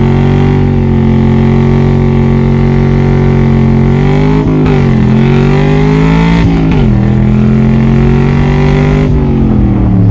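Carbureted 4.8-litre V8 with headers pulling hard, heard from inside the pickup's cab. The engine runs at high revs, dips sharply twice, about four and a half and seven seconds in, and its revs fall away near the end.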